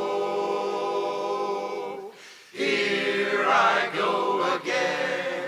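Men's barbershop ensemble singing a cappella in close harmony: a held chord that breaks off about two seconds in, then after a short pause the voices come back in on the next phrase.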